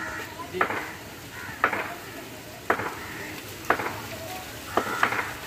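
Five sharp taps about a second apart, with faint calls from players in between.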